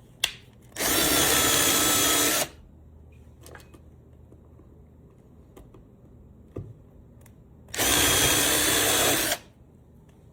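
Power drill boring holes in wood for threaded inserts: two short runs of about a second and a half each, with a steady motor whine, several seconds apart.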